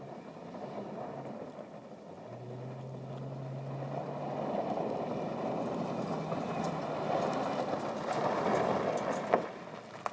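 Chevy Avalanche pickup power sliding: a steady engine note in the first few seconds, then a rushing noise from the tyres and ground that builds louder toward the end. A sharp knock comes near the end.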